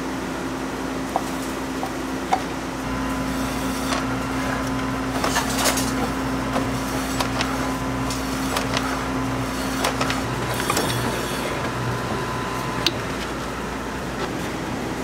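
Electric meat slicer slicing braised chashu pork: a low motor hum starts about three seconds in, with light clicks and knocks of meat and metal through the middle, over a steady kitchen hum.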